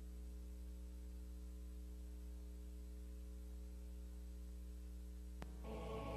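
Steady electrical mains hum, a low buzzing tone, with a single faint click about five seconds in; just before the end, music starts to come in quietly.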